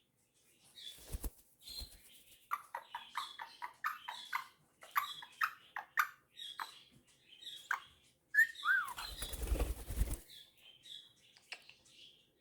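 Small pet parrots chirping and chattering in quick short notes, with one short rising-and-falling whistle, then a burst of wing flapping lasting about a second near the end.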